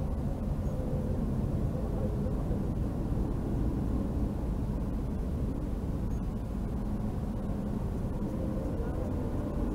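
Steady low rumble of passing highway traffic, heavy trucks among it.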